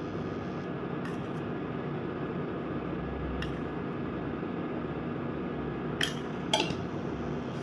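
Thick onion chutney cooking in a nonstick pan on an induction cooktop: a steady low hiss and hum, with a few light utensil clicks against the pan, two of them close together about six seconds in.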